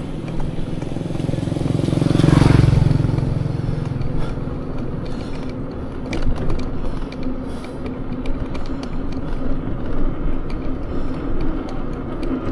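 Wind rushing over the microphone and tyre noise from an electric motorbike under way, with no engine sound. The rush swells louder about two seconds in, and light clicks and knocks come in from about five seconds on.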